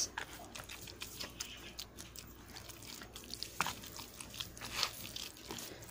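A hand kneading and squeezing a moist minced-milkfish filling for otak-otak in a bowl: faint, irregular soft clicks and rustles from the mixture being worked.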